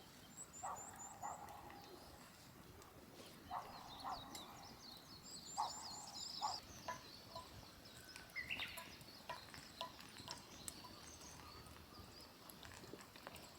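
Small birds chirping: quick runs of about five high notes, early and again about five and a half seconds in, with more twittering between. Scattered short knocks and faint clicks sound under them.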